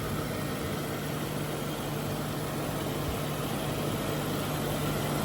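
Mercury Grand Marquis V8 idling with the air conditioning running, heard under the open hood: a steady hum under an even hiss.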